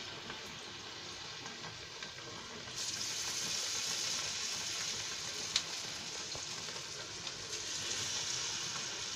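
Vegetable pakora batter deep-frying in hot oil in an iron karahi: a steady sizzle that gets louder about three seconds in as more batter goes into the oil, with a single light click a little past halfway.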